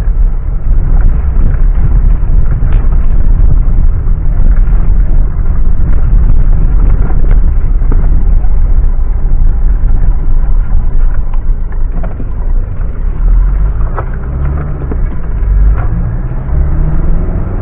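Mitsubishi Pajero driving off-road: a loud, low rumble of engine and drivetrain with scattered sharp knocks and cracks. Near the end the engine note rises and falls twice as it is revved.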